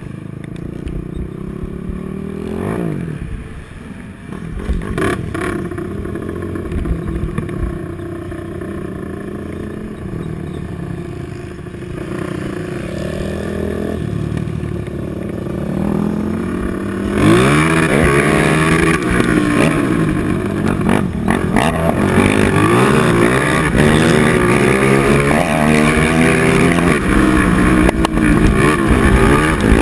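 Honda TRX450R's single-cylinder four-stroke engine revving up and down with the throttle as the quad races a dirt flat track, heard from on board. It gets louder and rougher from about seventeen seconds in, with repeated rising revs.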